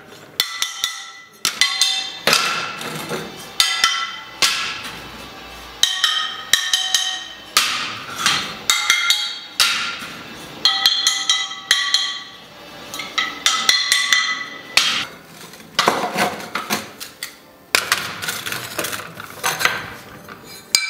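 Fired biscuit ceramic tiles tapped against one another in a steady run of strikes, roughly one or two a second, each giving a brief clear ring. This is the tap test for bisque tiles: a metallic ring shows the tile is sound, while a dull sound would reveal a hidden crack.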